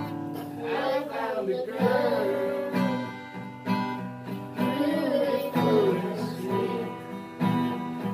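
Acoustic guitar strummed as a man and children sing a song together.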